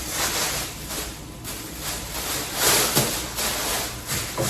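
Plastic grocery packaging rustling and crinkling in several short bursts as the groceries are handled.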